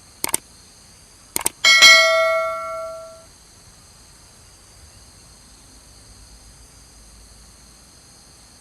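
Two short sharp clicks, then a single bell-like chime that rings out and fades over about a second and a half, over a steady high insect buzz.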